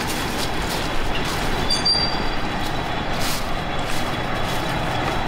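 A steady machine rumble, like a large engine running, with a brief high squeal about two seconds in.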